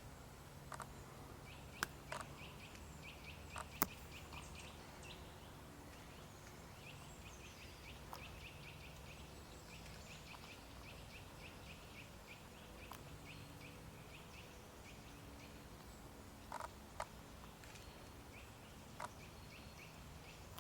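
Faint, rapid run of short high chirps, about five or six a second, from an animal, pausing briefly near the middle, with a few sharp clicks.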